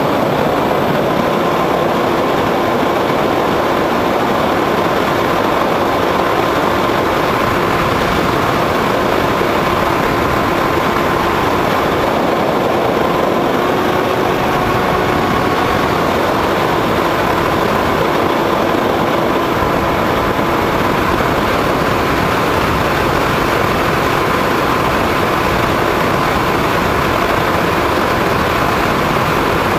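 RC model airplane's motor and propeller running steadily under wind rush, heard from the camera mounted on the plane. The motor's faint whine steps up a little midway, then settles back.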